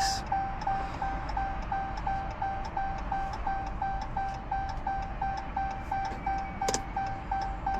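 Rapid electronic beeping, one steady tone repeating about four times a second, during car key fob programming, with a single click near the end.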